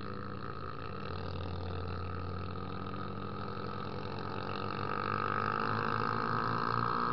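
Honda Tornado motorcycle's single-cylinder engine running while riding. It grows a little louder about five seconds in.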